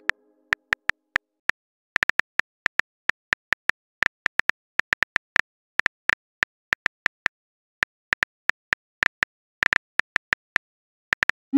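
Phone keyboard key-click sound effects, one quick click per typed letter in an uneven typing rhythm, a few a second. At the very end a short rising whoosh sounds as the message is sent.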